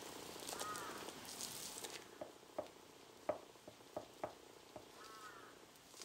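Foamed craft clay crackling softly as it is handled and pulled apart, then a few sharp light clicks as a palette knife cuts and presses into the soft clay bun.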